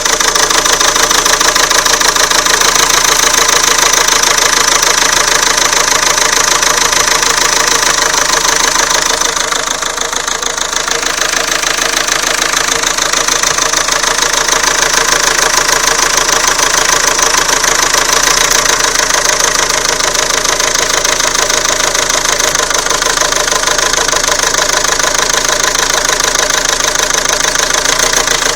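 Renault Scenic II 1.9 dCi (F9Q812) diesel engine idling with a steady, rapid knock. The knock began on starting after the car stood overnight; the owner first suspected an injector but doubts it.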